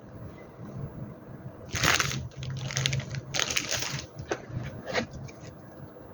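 WE M&P gas blowback airsoft pistol making several short, noisy mechanical bursts, the loudest about two seconds in and again around three and a half seconds in, with smaller clacks after.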